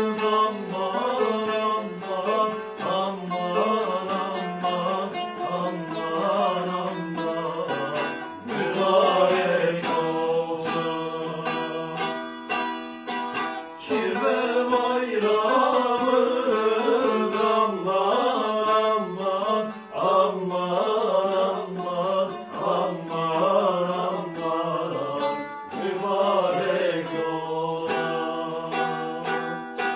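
Two bağlamas (long-necked Turkish saz) plucked and strummed together, playing a Turkish folk tune (türkü).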